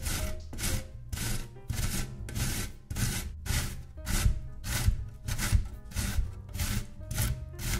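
Zucchini grated on the coarse side of a stainless-steel box grater: rhythmic rasping strokes, about two to three a second, each with a low thud.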